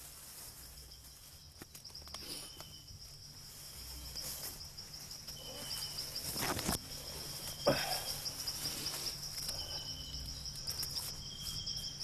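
Night insects, crickets, trilling in a steady high pulsing buzz, with short high chirps now and then. Two brief rustles or knocks about six and a half and seven and a half seconds in, the second the loudest sound.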